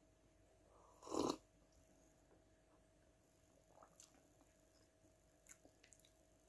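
Near silence, broken about a second in by one short sip from a mug, with a couple of faint clicks later.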